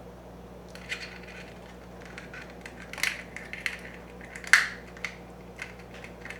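Irregular clicks and clinks of small hard toys, metal and plastic, being handled and knocked together, with a sharper clack about four and a half seconds in.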